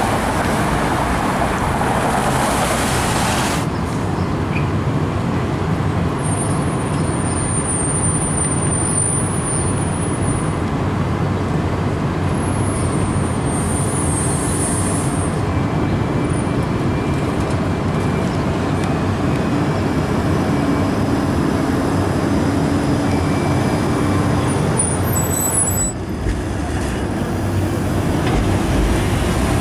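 Street traffic and a TTC Flexity Outlook streetcar running through an intersection on its tracks, a steady rumble of road and rail noise with faint high-pitched squeals in the first half.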